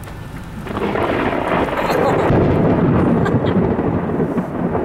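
Thunder rumbling, swelling about a second in and staying loud, with rain falling.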